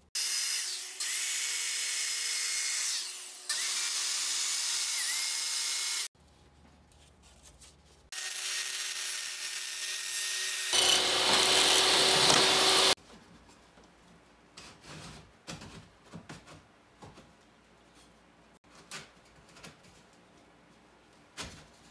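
Portable jobsite table saw running and ripping quarter-inch plywood underlayment, in two runs of several seconds each; the second gets louder and harsher for its last couple of seconds. Then a few light knocks and taps of wood being handled.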